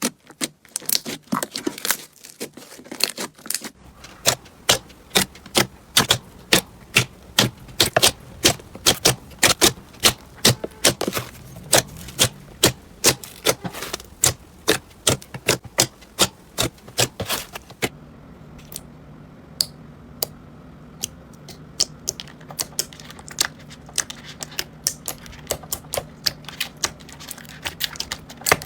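Crunchy slime being squeezed and pressed by hand, giving a fast run of sharp crackling clicks, several a second. About two thirds of the way through, the clicks thin out over a low steady hum.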